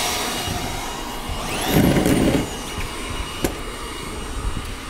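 Corded screw gun running briefly about two seconds in, its whine rising and then winding down, as it backs a faulty roofing screw out of a corrugated steel roof panel so the screw can be replaced. A single sharp click follows, over a steady background hum.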